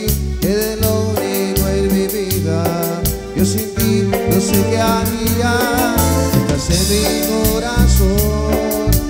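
Live Latin band music: a sung melody over a repeating bass line and steady, quick percussion.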